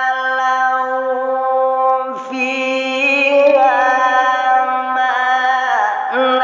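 A male qori's voice in melodic Quran recitation (tilawah), drawing one phrase out into a long held melisma. A steady note breaks about two seconds in into a higher, wavering ornamented line, dips briefly near the end, then climbs again.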